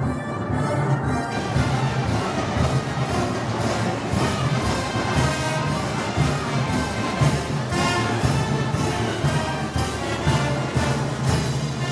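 A brass band playing Moros y Cristianos festival music, brass over a steady percussion beat.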